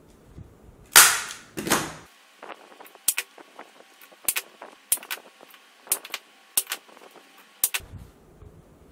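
Hand staple gun driving staples through leather into a chair's backrest board. There are two loud snaps about a second in, then a run of about ten quicker, sharper clacks.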